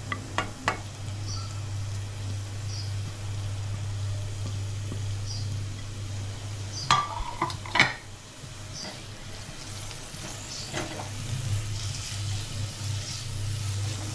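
Chopped tomatoes sizzling in a pan with frying onion, garlic and green chillies, stirred with a spoon that knocks against the pan a few times, loudest about seven to eight seconds in. A steady low hum runs underneath.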